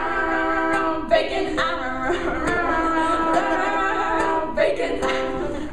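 Several voices singing together in harmony, holding long notes with little or no accompaniment.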